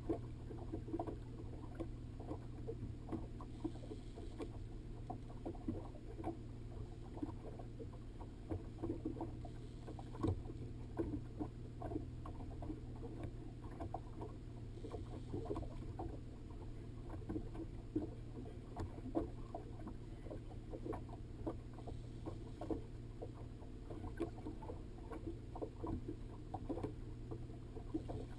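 Small waves lapping and slapping against a fishing boat's hull in uneven knocks, over a steady low hum.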